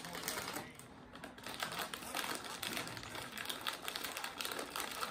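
Crinkling of a plastic Cheetos snack bag as hands reach into it and pass it along, a dense run of irregular crackles.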